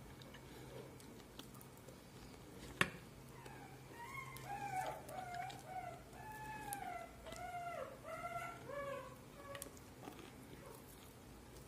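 A sharp knock about three seconds in, then a series of about eight short animal calls, each arching up and down in pitch, over roughly five seconds.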